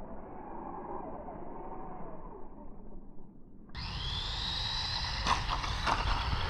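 DEERC 9310 RC monster truck driving, its small electric motor and gearing whining. The sound is muffled for the first half, then suddenly louder and clearer a little past halfway. A couple of short knocks come near the end.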